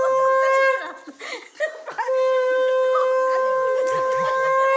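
Conch shell (shankha) blown in long, steady, single-pitched blasts: the note breaks off about a second in and is taken up again about two seconds in, then held.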